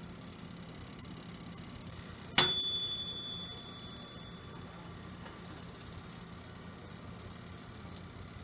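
Toshiba toaster oven's timer bell dinging once about two seconds in, a sharp click and a bright ring that dies away over about a second: the timer has run out and the oven's heating elements have switched off.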